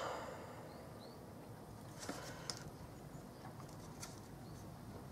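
Faint handling of a plastic model kit: fingers turning and rubbing the styrene airframe, with a few light clicks about two, two and a half and four seconds in.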